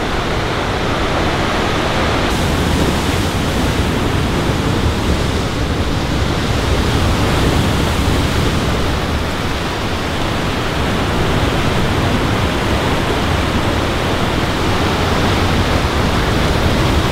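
Cheakamus River whitewater rushing through a narrow rock gorge: a loud, steady rush of water.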